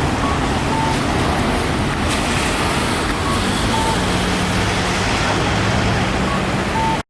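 Japanese pedestrian crossing signal giving its cuckoo-style two-note electronic call, a short higher note then a longer lower one, three times about three seconds apart. It plays over steady street traffic noise, which is the louder sound, and everything cuts off suddenly near the end.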